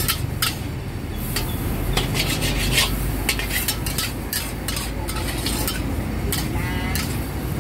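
Metal spatula scraping and clanking against a large steel wok, several strokes a second, as greens and noodles are stir-fried with a sizzle. A steady low rumble runs underneath.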